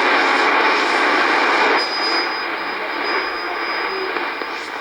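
Shortwave receiver hiss and static in AM mode as the dial is tuned between broadcast stations. About two seconds in the noise drops slightly and a thin, steady high whistle comes in for about two seconds.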